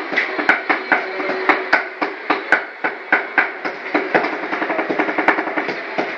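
Rhythmic chopping: cleavers striking a chopping board as sisig is chopped, several sharp strokes a second in a fast drum-like beat.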